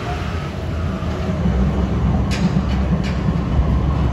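Low-floor tram rolling into the stop, with a low rumble growing louder from about a second and a half in. Two short sharp clicks come near the middle.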